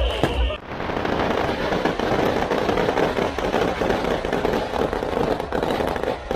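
Fireworks going off: a few sharp bangs and a high whistle at the very start, then about half a second in a dense, continuous crackling of many rapid small pops.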